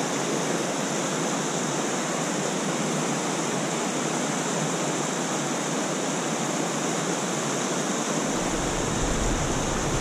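Stream water rushing over a small rock-ledge cascade: a steady, even rush of white water. A low rumble joins about eight seconds in.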